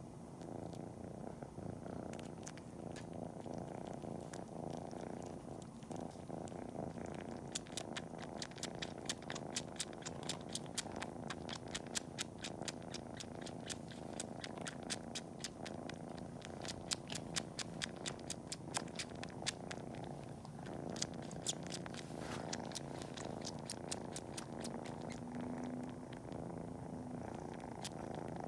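Kitten purring steadily while suckling on its own toes as if nursing, with loud clicking suckling sounds a few times a second, most frequent from about seven seconds in.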